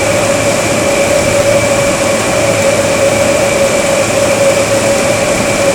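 Steady, loud rushing of a storm-test rig's blower driving artificial wind and water spray, with a constant whine over the hiss.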